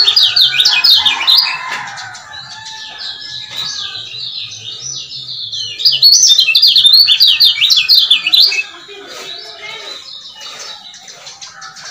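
Male lemon-bellied white-eye (kecial kuning) chirping fast strings of high, quickly falling notes. It comes in two loud bouts, one at the start lasting about a second and a half and another from about six seconds to eight and a half, with softer chirping between and after.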